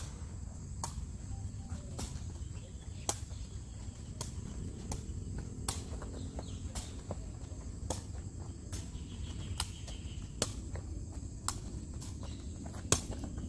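A woven takraw ball being kicked back and forth: sharp pops at an uneven pace, about one or two a second, the loudest near the end. Under them are a steady low rumble and a thin steady high tone.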